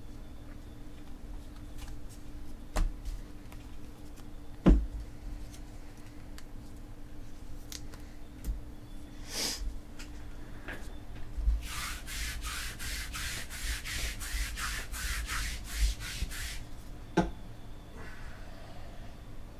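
Trading cards and card boxes being handled on a table: a few sharp knocks, the loudest about five seconds in, then a run of quick scraping strokes, about four a second, lasting around five seconds, and one last knock near the end.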